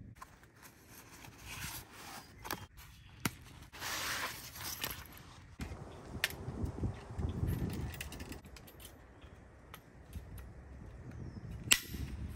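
Dry sticks and brush rustling and snapping while firewood is gathered in the woods, with a few sharp cracks, the loudest near the end.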